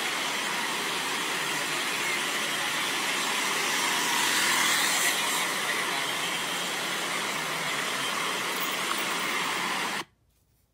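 Street traffic: cars driving past in a steady wash of city noise, which swells a little about four seconds in and cuts off suddenly near the end.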